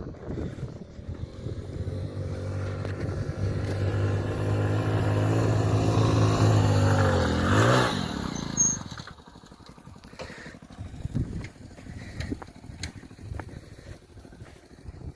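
Hero Splendor Plus motorcycle's small single-cylinder engine pulling under load, growing louder with a steady pitch for several seconds. The pitch wavers, and about nine seconds in the engine note falls away to a much quieter, uneven running with scattered clicks.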